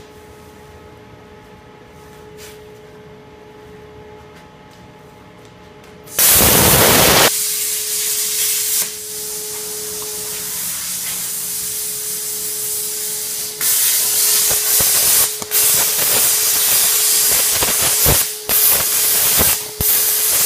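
Oxy-fuel cutting torch hissing as it cuts through steel railroad rail. A very loud blast of hiss comes about six seconds in, and the hissing grows louder with brief breaks from about two-thirds of the way through.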